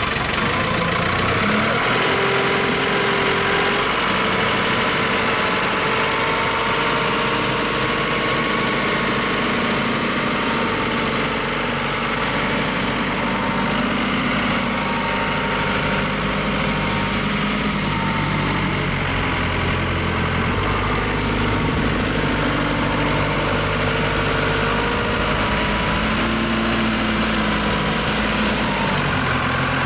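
Gradall telehandler's diesel engine running under load as it lifts and carries a heavy steel beam, its speed rising and falling several times.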